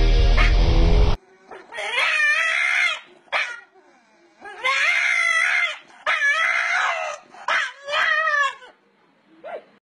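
A dog calling out in a string of long, wavering, pitch-bending cries of about a second each, with a few short yips between. Music cuts off about a second in.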